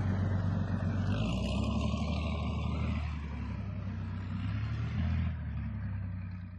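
Heavy truck's engine running steadily as the vehicle drives, easing slightly about three seconds in.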